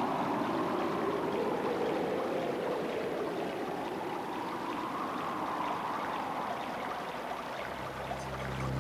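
Steady rushing, water-like noise whose tone slowly sweeps up and down. Music comes in near the end with a low held bass note.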